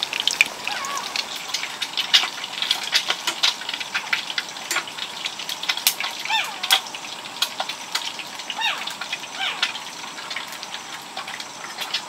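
Cooking clatter: a metal spoon and chopsticks clinking and tapping against a steel pot and bowls, many sharp clinks over a steady hiss. Short high chirps sound a few times, mostly in the second half.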